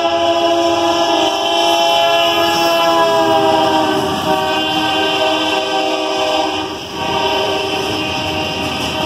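Multi-chime air horn of a Ferrosur GE AC4400CW freight locomotive sounding one long blast as it passes, its pitch dropping slightly as it goes by. The horn cuts off about two-thirds of the way through, leaving the rumble and wheel noise of freight cars rolling past.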